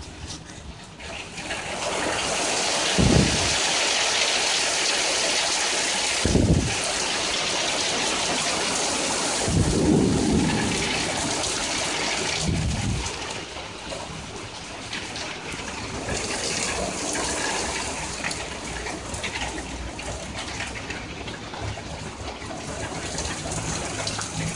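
Heavy rain falling steadily, a dense hiss that eases somewhat about halfway through. A few short low thumps sound underneath it.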